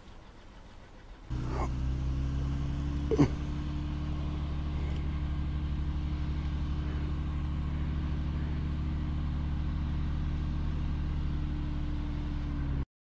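A steady, low engine hum at a constant speed. It starts abruptly about a second in and stops suddenly just before the end. A short falling squeak stands out about three seconds in.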